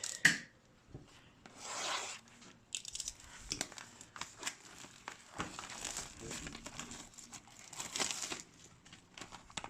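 Plastic wrapping on a sealed box of trading cards being torn and crinkled off, with small clicks and rustles of cardboard being handled; the biggest swells come about two seconds in and again near the end.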